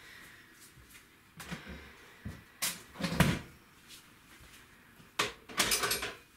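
A handful of sharp household knocks and clatters, like a cupboard or door being opened and shut. The loudest are a thud about three seconds in and a quick rattling cluster shortly before the end.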